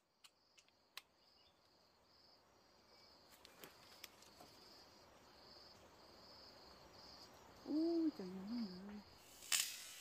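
Insect chirping: a thin high pulsed note repeating about twice a second. A few sharp clicks come in the first second. About eight seconds in there is a short, low, wavering hum, and a loud sharp click follows just before the end.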